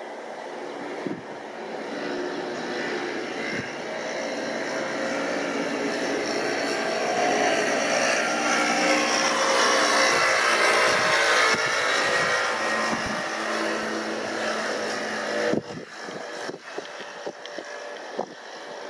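Boeing KC-767 tanker's two General Electric CF6 turbofan engines passing overhead: the jet noise builds over about ten seconds to a peak, then falls away sharply about 15 seconds in, leaving wind buffeting the microphone.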